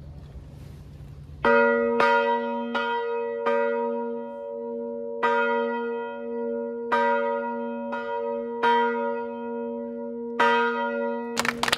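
The 300-kilogram church bell cast by Benjamin Wittwerck in Danzig in 1719, tuned to B, rung with about a dozen strokes at uneven intervals, its deep tone and overtones ringing on between strokes. A burst of noisy clatter joins in near the end.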